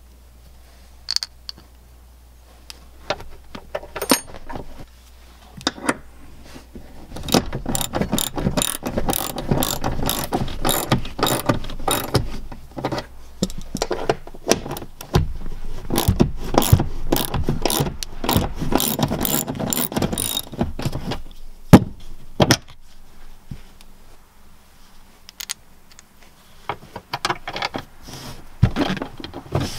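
Hand socket ratchet clicking quickly in long runs as it turns a rear bench seat pivot bolt in an XJ Cherokee. Two sharp knocks come near the end of the ratcheting, followed by a few lighter clicks.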